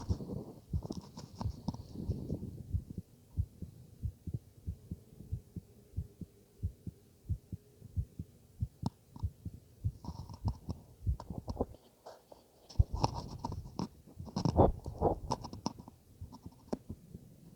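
Heartbeat heard through a stethoscope: a steady, regular run of low thumps. Louder noisy bursts break in about ten seconds in and again in the second half.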